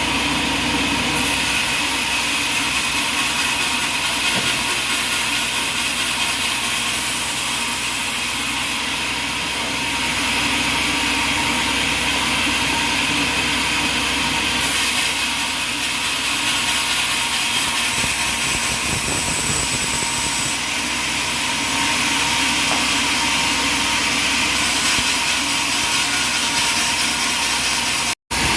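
Sawmill machinery running steadily as a saw cuts through an oak log, with a high whine that comes and goes in stretches. The sound drops out for an instant near the end.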